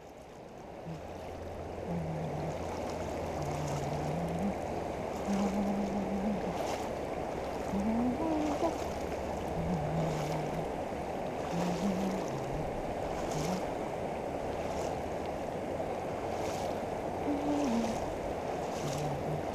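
Steady rush of river water pouring over and below a low-head dam spillway, swelling over the first two seconds and then holding. A faint low tone steps up and down in pitch underneath, and a few brief sharp sounds cut through.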